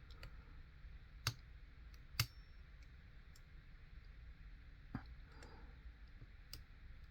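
Lock picks working the pins of a U.S. postal rotary lock: a handful of short, sharp clicks, spaced irregularly.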